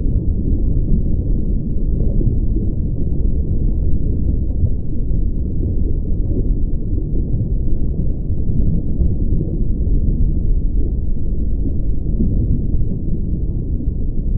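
Underwater ambience sound effect: a steady, muffled low rumble with nothing above about 1 kHz and no separate events.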